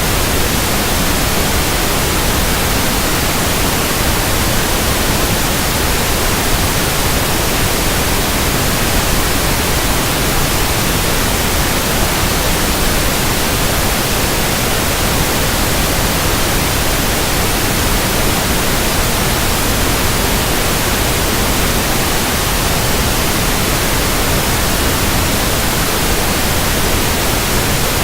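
Pink noise test signal: a steady, even hiss that never changes, used for testing a speaker.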